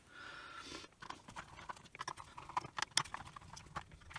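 A short rustle, then irregular light clicks and taps of hands handling the opened plastic charger casing, its wiring and tools on the work mat.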